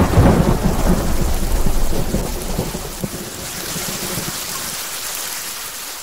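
A rumble of thunder that dies away over about three seconds, over steady rain.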